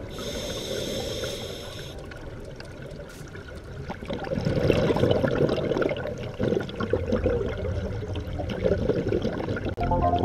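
Scuba diver's exhaled bubbles and regulator breathing heard underwater through a GoPro's waterproof housing. A muffled, crackling bubbling swells about four seconds in, with a thin high whistle in the first two seconds.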